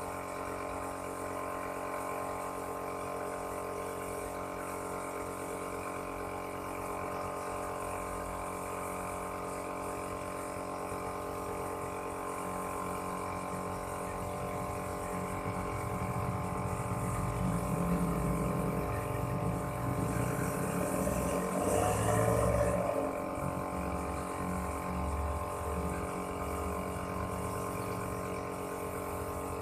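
Air compressor running steadily with a constant hum, feeding air to a paint spray gun. The sound grows louder and rougher for several seconds about two-thirds of the way through.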